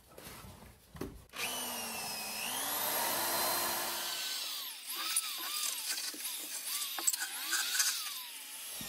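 Cordless Milwaukee grinder with a wire wheel brush starting up with a rising whine, then scrubbing rust off the steel edge of a car's front fender, its pitch dipping and recovering again and again as the wheel bites into the metal.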